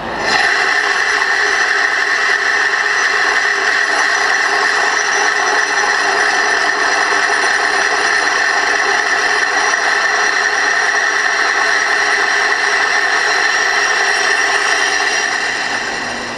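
Metal lathe boring the inside of a bronze sleeve blank: a steady cutting noise with a high, steady tone on top. It starts suddenly just after the start and fades out near the end.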